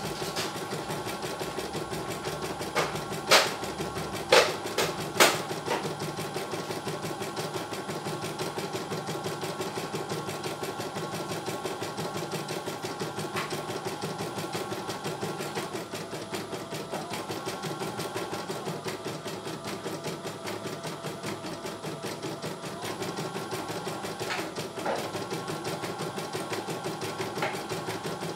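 CNY E900 computerized embroidery machine stitching a design: the needle runs at a fast, even rhythm over the motor's steady hum. A few sharp clicks come about three to five seconds in, and again faintly near the end. The pitch of the running shifts slightly a couple of times in the second half.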